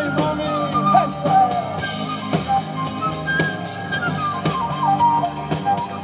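Instrumental Latin American music played live by a small band: a high, gliding melody line over guitar, electric bass, congas and a steady drum beat.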